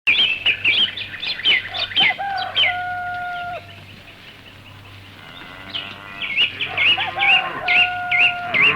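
Small birds chirping rapidly and repeatedly, with a rooster crowing twice, each crow a long held call.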